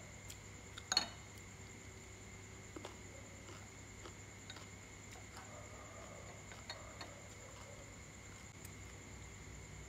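Chopsticks clicking against ceramic bowls while eating: one sharp clink about a second in, then a few lighter taps. A steady faint high whine runs underneath.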